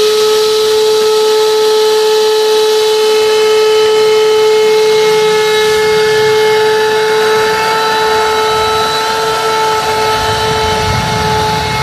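Vacuum cleaner running steadily while vacuuming a car's interior: a constant motor whine over a rush of air.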